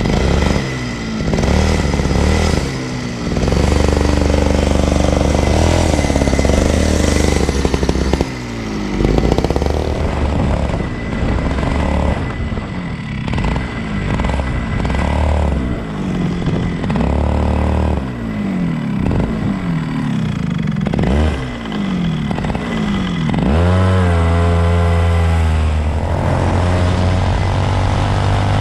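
Two-stroke racing kart engine heard onboard, revving up and down: the pitch climbs on the straights and drops each time the throttle is lifted for a corner, over and over. Near the end it holds high and then climbs again along a straight.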